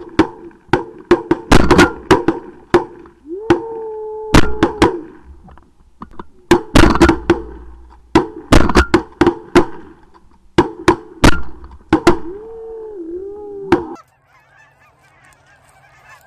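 Rapid shotgun volley from several hunters, about twenty shots in some fourteen seconds, into a flock of Canada geese honking overhead, with a couple of long drawn-out honks among the shots. About 14 s in the shooting stops abruptly, leaving only faint distant goose calls.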